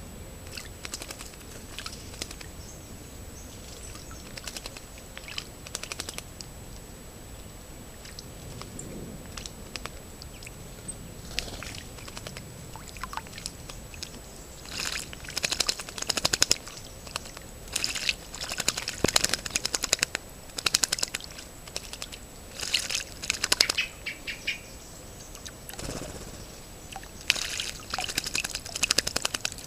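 Song thrushes bathing in a shallow pool, splashing and beating their wings in the water in repeated bursts through the second half. Before that, only scattered light ticks.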